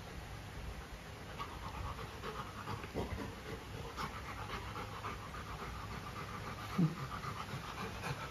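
Golden retriever panting quickly and steadily, with one short, louder sound about seven seconds in.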